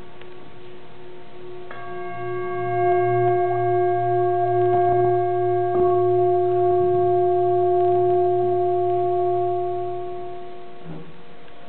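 Brass singing bowl ringing with several clear overtones, struck again about two seconds in and then held with a slowly wavering tone. A didgeridoo's low drone plays beneath it from about two seconds in until shortly before the end.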